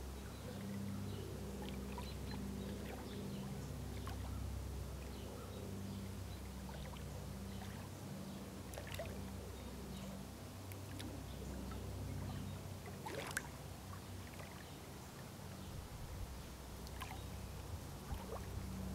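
Small waves lapping at a lake shore, with soft splashes and ticks scattered over a low steady hum, and one sharper tick about thirteen seconds in.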